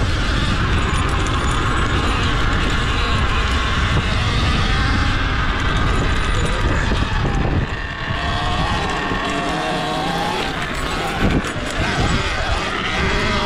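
Sur-Ron Ultra Bee electric dirt bike being ridden on a dirt track, its electric motor whining and rising and falling in pitch with the throttle over a steady rush of wind and tyre noise.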